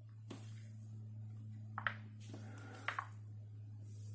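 Faint handling of a smartphone: a few light, separate taps of a finger on the fingerprint sensor on its back, about a second apart, over a steady low hum.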